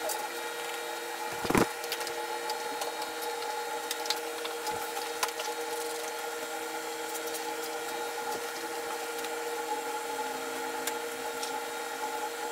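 A steady hum of several held tones, with a single heavy thump about one and a half seconds in and a few light clicks of handling.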